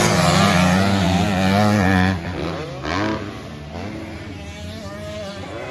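Several motocross bikes racing past on a dirt track, their engines revving, rising and falling in pitch again and again. Loudest in the first two seconds, with one more surge about three seconds in, then quieter as they move away.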